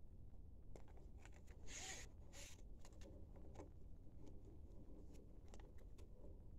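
Faint handling noise from a braided faucet hose being moved and pulled: light scattered clicks and two short scraping rustles about two seconds in.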